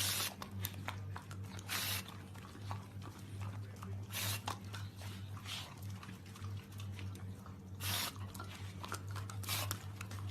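A dog making short breathy huffs every second or few seconds, over a low steady hum.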